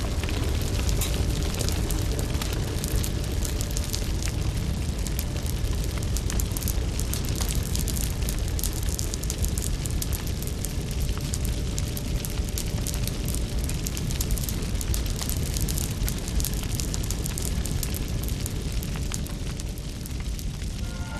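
A large open fire burning, with a steady low roar and dense crackling throughout.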